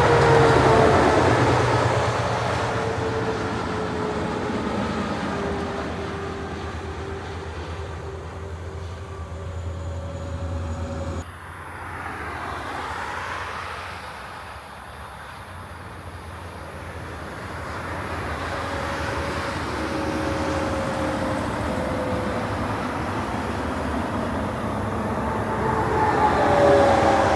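Semi-trailer trucks passing on a motorway. A white cab-over prime mover goes by close at the start, its engine and tyre tone falling in pitch as it passes. The sound drops suddenly about eleven seconds in, then steady traffic builds until more trucks pass loudly near the end.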